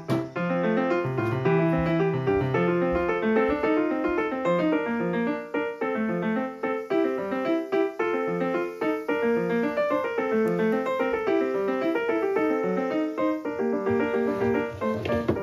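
Background piano music: a light tune of quick, even notes.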